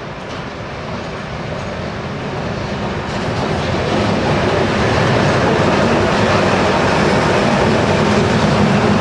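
DE 520 diesel-electric locomotive approaching with its engine running, then passing close by with its coaches rolling past. The sound grows steadily louder until the locomotive draws level about four seconds in, then stays loud as the coaches go by.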